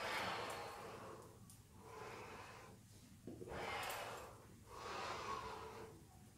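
A woman breathing deeply and audibly into the microphone as she rolls her torso in slow circles: four long breaths, each about a second, the first the loudest.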